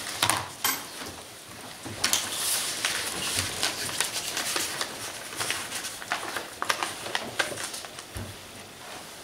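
Papers rustling and pens scratching on paper, with scattered small clicks and knocks on the table.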